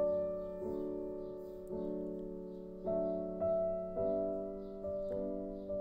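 Background piano music: soft, sustained keyboard chords, with a new note or chord struck every half second to a second.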